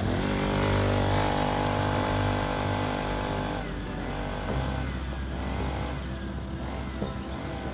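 Small 40cc two-stroke pocket bike engine revving up as the bike pulls away and holding high revs, then dropping to a lower, weaker note after about three and a half seconds as the bike rides off.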